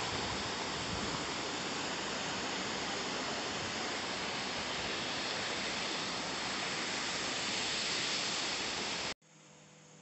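Steady rushing of a small forest waterfall. It cuts off abruptly about nine seconds in, and much quieter sound follows.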